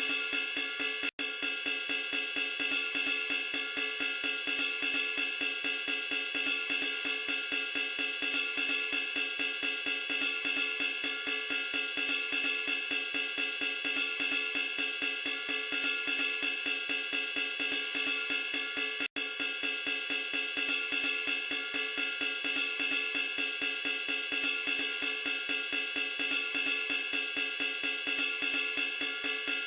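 Background music with a fast, steady beat, dropping out for an instant twice.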